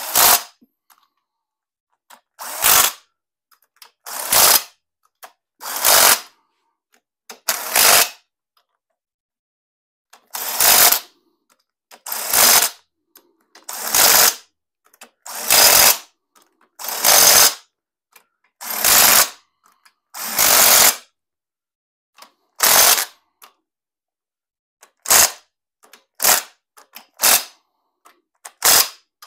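Quarter-inch cordless impact driver hammering on the crankshaft main-cap bolts, snugging them down before they are torqued. It goes in a dozen or so bursts of about a second each, a second or two apart, then in shorter, quicker bursts near the end.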